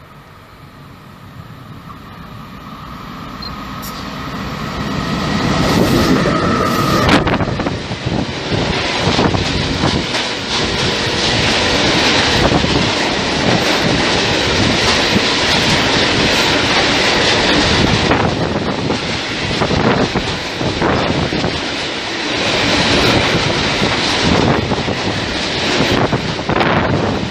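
Freight train hauled by an electric locomotive, growing louder over the first six seconds as it approaches. A long rake of bogie hopper wagons then rolls past close by, with repeated clacks of wheels over rail joints.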